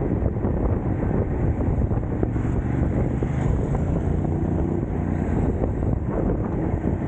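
Wind buffeting the microphone over a steady low road rumble, with a faint engine hum about three to five seconds in.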